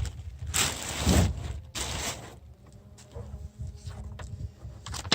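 Plastic wrap rustling and crinkling as a WeatherTech floor mat is pulled out of it, in three loud bursts over the first two seconds or so, then quieter handling with a few light clicks.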